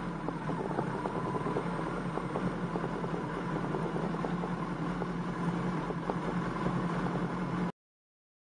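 Outdoor rain ambience: a steady wash of noise with many scattered small drop ticks over a steady low hum. It stops abruptly to silence near the end.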